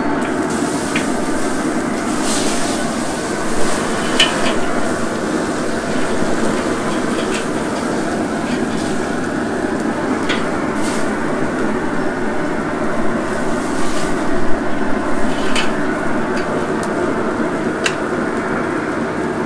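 Tomahawk steaks sizzling over a grease flare-up on a Recteq RT-B380 Bullseye pellet grill at full heat, with a steady rush under sharp crackling pops every second or two.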